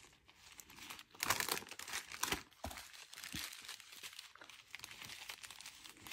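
Small clear plastic zip-lock bags crinkling as hands shuffle and sort through them, in irregular bursts, loudest just over a second in.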